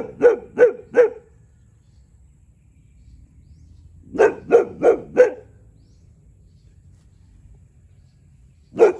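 One-year-old Boxer dog barking in quick runs: four barks at the start, four more about four seconds in, and a single bark at the very end. This is territorial barking at a neighbouring cow.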